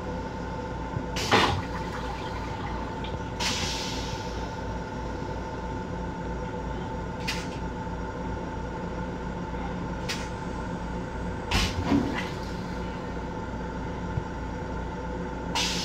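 Steady hum of a Long Island Rail Road M7 electric railcar heard inside its small restroom, with a few fixed tones in it. About seven short sharp knocks and rattles from the restroom fittings come through it, the loudest about a second in and around twelve seconds in.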